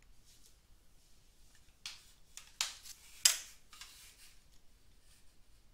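A few sharp clicks and brief rustles over faint room tone, the loudest about three seconds in.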